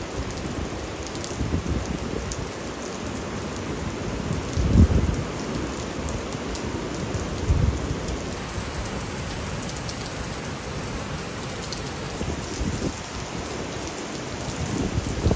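Steady rain falling, heard from an open balcony, with two brief low thumps about five and eight seconds in.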